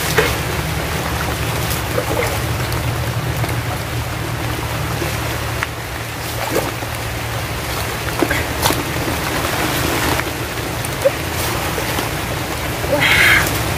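Steady rushing outdoor noise with a low rumble, broken by a few short knocks and splashes as a coconut fish trap is handled in shallow creek water.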